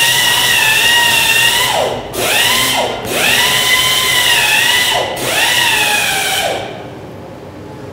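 Handheld rotary grinder cleaning rust off a car's wheel hub mounting face so that a new brake disc will sit flat. It runs with a loud high whine over a hiss, spins down and back up about two, three and five seconds in, and stops about six and a half seconds in.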